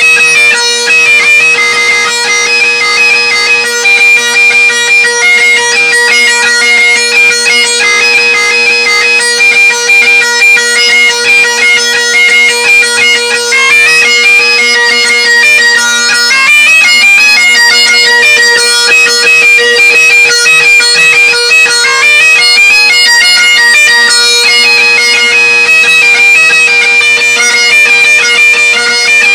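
Great Highland bagpipe played solo: steady drones sound beneath a quick chanter melody whose notes change several times a second. It is loud and close.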